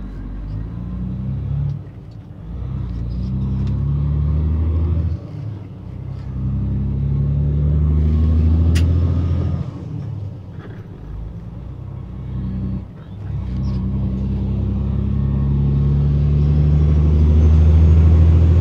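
Semi-truck diesel engine heard from inside the cab, pulling away and accelerating through the gears: the engine note climbs, dips briefly at each upshift about two, five and thirteen seconds in, then climbs again.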